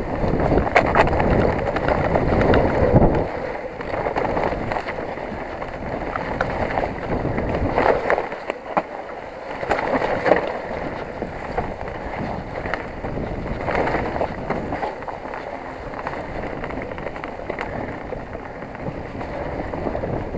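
Specialized Enduro 29 mountain bike riding down a rough trail: a constant rumble of tyres on dirt and stone, with many short knocks and rattles over bumps, and wind buffeting the microphone.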